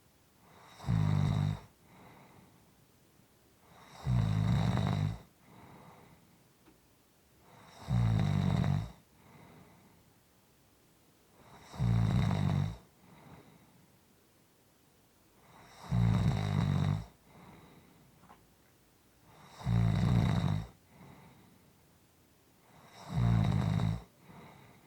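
A person snoring steadily, seven loud snores spaced about four seconds apart. Each snore is followed by a softer breath.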